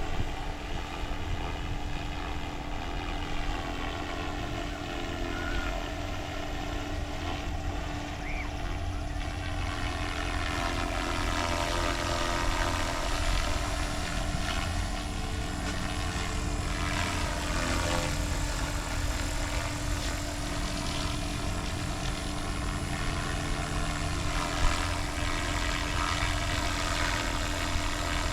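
Small low-flying aircraft, named in the title as a helicopter, droning steadily. Its sound swells and sweeps up and down in pitch about halfway through as it passes close by.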